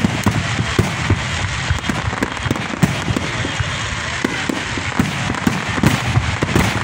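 Fireworks display: a dense barrage of explosions, many sharp bangs a second over a continuous crackling rumble.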